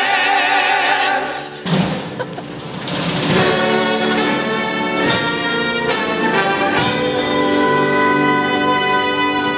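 Show-tune music: the singers hold the last sung word, then a band led by brass plays held chords that move about once a second.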